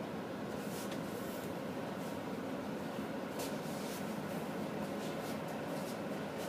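Steady, faint room noise heard from behind glass, with a few soft rustles. The distant helicopter makes no distinct rotor sound.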